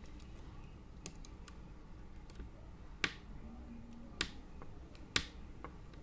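A handful of sharp clicks, the loudest a little after five seconds in, as a small motor inside a disassembled laptop hard drive is prised at with hand tools; the motor is stuck very tight.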